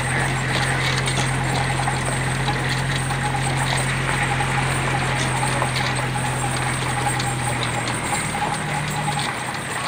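Steady drone of the tow vehicle's engine pulling the pirate-ship ride on its trailer, under a constant irregular clatter and knocking from the ship's structure as it rolls. The engine note shifts a little near the end.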